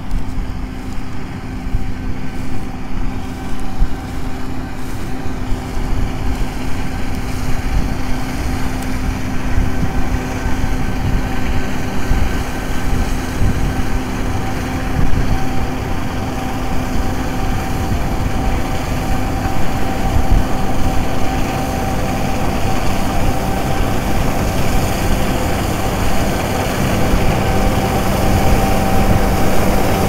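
John Deere S790 combine harvester running steadily as it cuts oilseed rape: a constant engine and machinery drone with a steady whine, growing louder toward the end as it comes closer.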